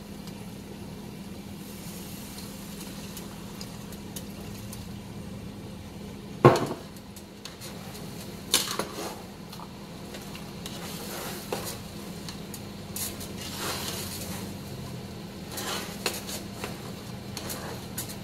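A metal utensil scraping and clinking against a frying pan as milk is stirred into mashed potatoes with chorizo, with one sharp knock about six seconds in and scattered clinks after it. A steady low hum runs underneath.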